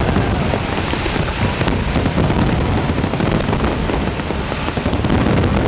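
Aerial fireworks finale barrage: shell bursts and crackling stars going off so close together that they merge into a continuous rumbling, crackling din.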